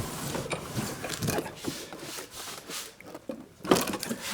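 A new lawnmower and its cardboard packing being pulled out of the shipping box: irregular scraping, rubbing and small clunks, with a sharper knock near the end.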